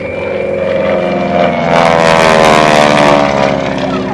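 North American Harvard Mark IV's Pratt & Whitney R-1340 Wasp radial engine and propeller at full power, growing louder to a peak about two seconds in, then dropping in pitch as the aircraft passes.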